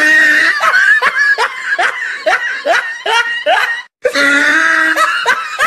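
Laughter: a run of short rising "ha" sounds, two or three a second, breaking off briefly about four seconds in before more laughing.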